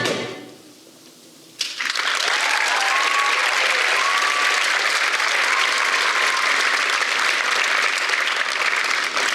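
The choir's last chord dies away into a short hush, then an audience breaks into applause about a second and a half in and keeps clapping steadily.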